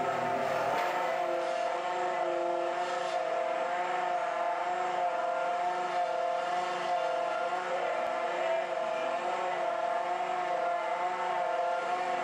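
Portable hydraulic drive head running steadily as it screws a helical pile into the ground: a continuous machine whine whose pitch wavers slightly and regularly.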